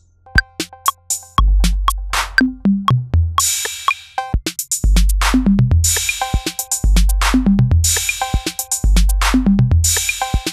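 Beat from a Native Instruments Maschine 2 808 drum kit. It starts sparse with light ticks. Long, low 808 kicks come in about a second and a half in, along with short low drum hits that step down in pitch, hi-hat and cymbal washes, and short bell-like tones.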